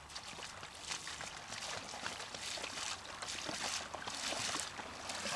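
Someone wading through shallow floodwater: irregular sloshing, splashing strides, louder through the middle.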